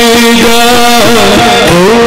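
Live jatra stage music: long held melody notes that slide in pitch about halfway through, over quick percussion strokes.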